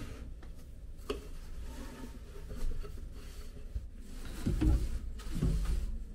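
Handling noises as a hand brushes rolled terry-cloth towels in a wooden box: a sharp click about a second in, light rubbing, and two dull thumps near the end.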